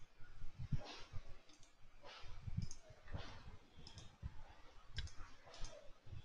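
Faint, irregular clicking and soft low knocks from someone working at a computer.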